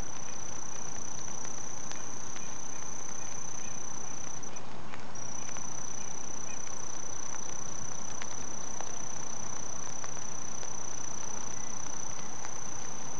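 Crickets trilling: one continuous high-pitched trill that drops out briefly about four and a half seconds in, then resumes, over a steady background hiss.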